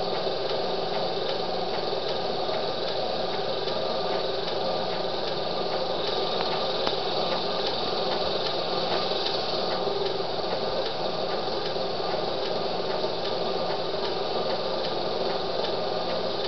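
Homemade HHO electrolysis cell running on plain water, its water fizzing as gas bubbles pour out, heard as a steady crackling hiss.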